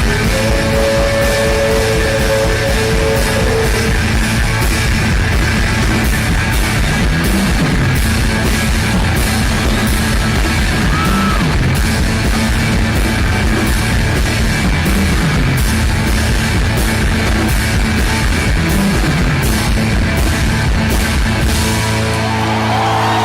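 Rock music with drums and guitar at a steady beat. Near the end the drums drop out and a held chord rings on.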